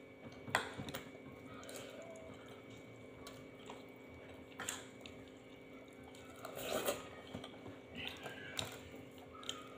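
Quiet eating at a table: chewing with a few sharp clicks of dishes, one about half a second in and more near five and seven seconds, over a faint steady hum.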